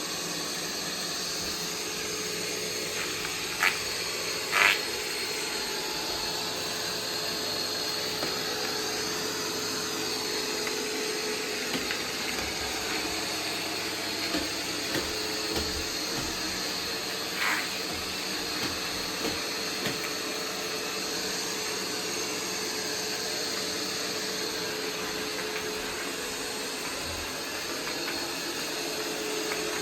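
Roomba 505 robot vacuum running steadily while picking up scraps of paper, its motor and brushes making an even whirr with a constant hum. A few brief sharp clatters stand out, two close together a few seconds in and one about halfway through.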